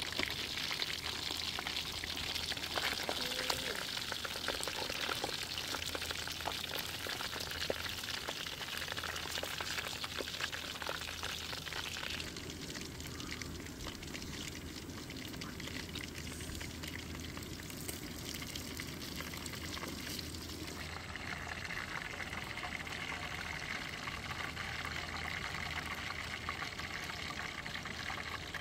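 Whole fish frying in hot oil in a wok, sizzling with dense crackling pops. After about twelve seconds the crackling gives way to a softer, steadier hiss, which changes again later on.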